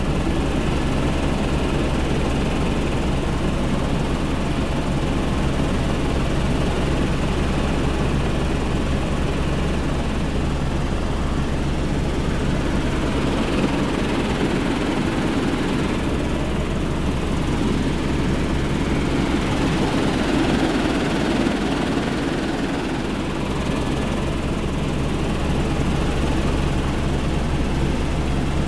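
Helicopter in flight heard from inside the cabin: the rotor and engine make a steady low hum with a rushing noise over it, unchanging throughout.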